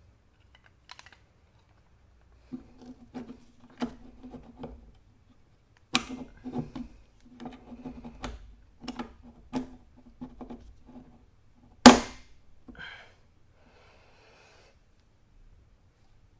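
Hand tools knocking and clicking on metal parts in an irregular run, each knock with a short metallic ring. One sharp, loud bang comes a few seconds before the end.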